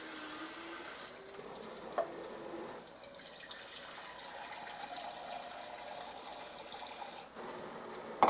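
Filtered water running into a container with a steady rush and a faint ringing tone that changes pitch partway through. A sharp knock comes right at the end.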